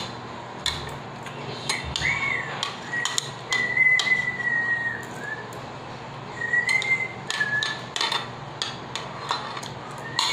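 Metal spoon and chopsticks clinking and scraping against a ceramic bowl in short, sharp clicks. Over them a wavering whistled note is held twice: the first, about three seconds long, starts two seconds in, and a shorter one comes a little past the middle.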